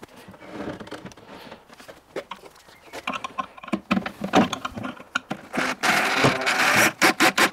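Laminated wooden cabinet panels being handled and fitted together: irregular knocks, clicks and scraping, sparse at first and busier in the second half.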